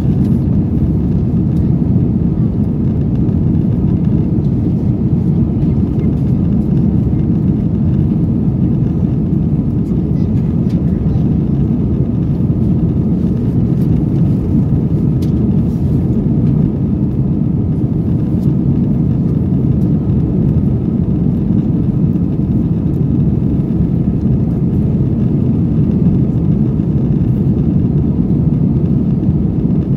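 Steady low rumble of an Airbus airliner's jet engines and rushing air, heard inside the passenger cabin during the climb after takeoff.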